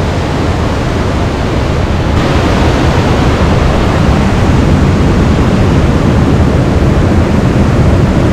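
Waterfall: loud, steady rush of falling water close to the microphone, getting a little louder about two seconds in.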